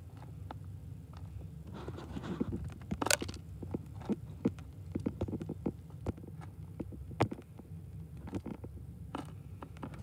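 A small bird pecking and rummaging in black sunflower seeds in a window feeder: irregular clicks and taps of beak and seed hulls, with a few louder clicks about three and seven seconds in, over a low steady hum.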